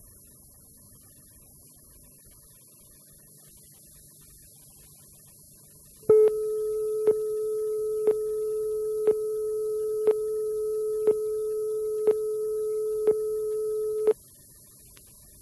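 Videotape countdown leader: faint tape hiss and hum, then about six seconds in a steady mid-pitched line-up tone with a short tick every second. The tone lasts about eight seconds and cuts off suddenly, leaving faint hiss.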